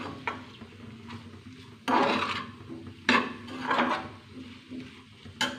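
Metal spoon scraping against a stainless steel pan while stirring chunks of spiced potato and tomato, in several separate strokes, the longest about two seconds in.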